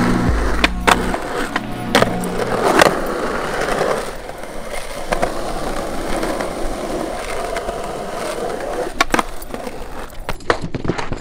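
Skateboard wheels rolling on smooth concrete in a steady rumble, with sharp clacks of the board hitting the ground: several in the first three seconds, and more about nine to ten seconds in.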